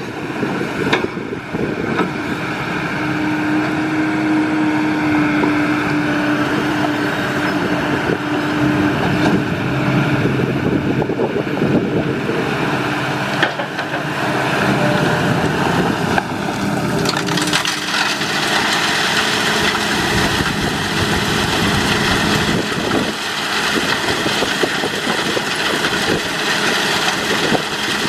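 Kobelco SK200 hydraulic excavator's diesel engine working under load while its bucket scoops and tips crushed split stone, the stone grinding and rattling, with a steady hum for several seconds in the first third.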